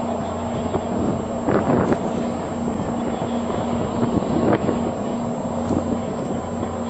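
Wind buffeting the microphone over a steady low hum of boat engines, with louder gusts about a second and a half in and again about four and a half seconds in.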